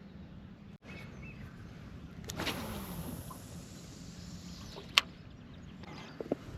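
Fishing rod cast: a rushing swoosh with a falling sweep about two seconds in as the lure is flung out, then a single sharp click about five seconds in and a few small clicks near the end. A steady low hum sits underneath.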